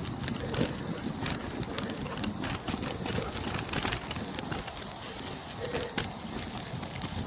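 Bicycle riding over rough ground: a steady rumble of tyres rolling, with many small clicks and rattles from the bike, and wind buffeting the microphone.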